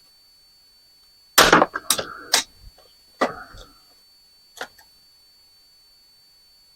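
Sharp clacks and knocks of the plastic and steel parts of a dismantled CD/DVD drive being handled and pried apart: a quick run of several knocks, one more a second later, then a single click.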